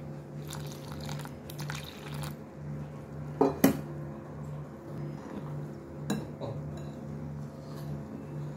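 Metal spoon stirring flour batter in a ceramic bowl, scraping and clinking against the bowl, with two sharp clinks about three and a half seconds in and another near six seconds.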